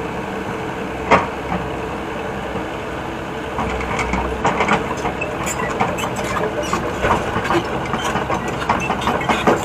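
Hitachi excavator's diesel engine running steadily. A sharp knock comes about a second in, and irregular clattering knocks follow through the second half.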